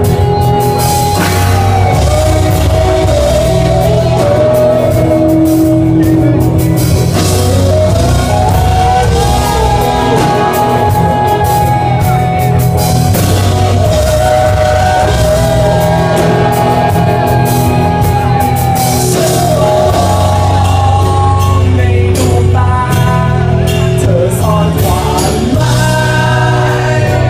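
Live rock band playing an instrumental passage: a held, gliding lead melody over steady bass and drums.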